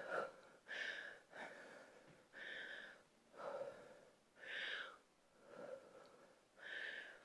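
A woman breathing hard from exertion during a dumbbell lunge-and-deadlift set. The breaths are soft, quick and noisy, about one a second.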